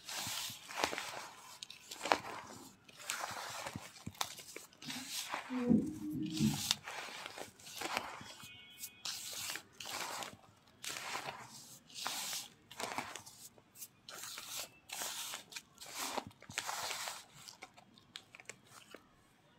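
Hand squeezing and crumbling damp naphthalene powder mixed with kerosene in a bowl, a gritty crunch with each squeeze, roughly one a second. A short voiced sound about six seconds in.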